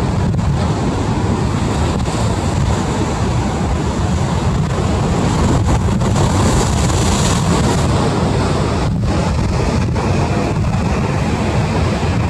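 Storm surf breaking against a breakwater, with wind buffeting the microphone: a loud, steady rush of noise with a heavy low rumble. The surf swells louder about six seconds in.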